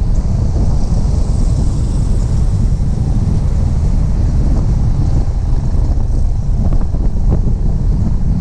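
Heavy wind buffeting on the microphone of a camera riding on a moving motorcycle, a loud steady low rumble. A few light knocks come through near the end.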